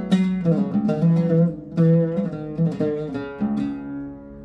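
Sabsaby-made Arab oud played solo in an improvised taqasim, a quick run of plucked notes. About three and a half seconds in, the playing stops and the last note rings on and fades.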